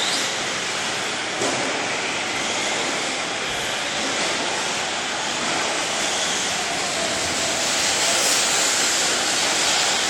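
Radio-controlled 4x4 short-course trucks racing on a dirt track, heard as a steady rushing noise of motors and tyres, with a single click about a second and a half in.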